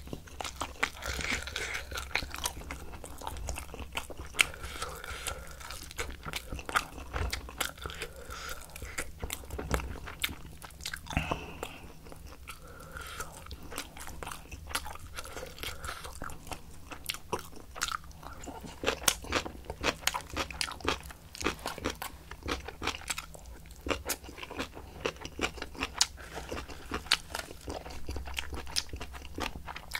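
A person chewing spicy napa cabbage kimchi with rice and roasted seaweed close to the microphone, with many sharp, wet crunches all the way through.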